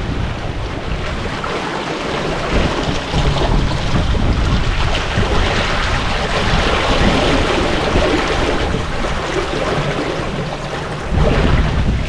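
Sea water rushing and splashing past the hull of a sailboat under way, with wind buffeting the microphone as a low rumble that grows stronger near the end.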